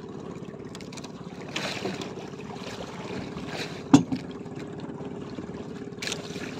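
Small outrigger fishing boat's engine running steadily at low speed, with water washing against the hull and a single sharp knock about four seconds in.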